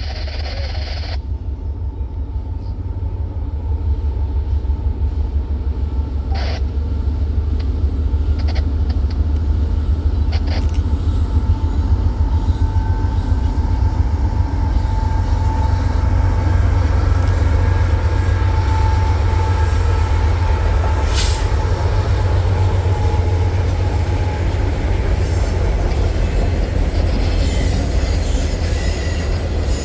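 CSX office-car special passenger train passing, a loud, steady deep rumble that swells a few seconds in. A faint thin squeal runs through the middle, and a few sharp clicks come from the wheels on the rails.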